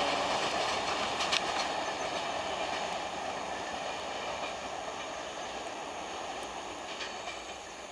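Passenger train coaches running away on the rails, the rolling wheel-and-rail noise fading steadily as the train recedes, with one sharp click a little over a second in.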